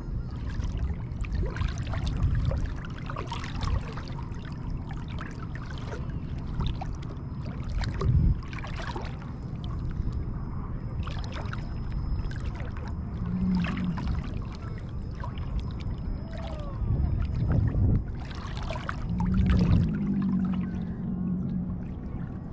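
Shallow seawater lapping and splashing close to the microphone in irregular small splashes over a low, steady rumble.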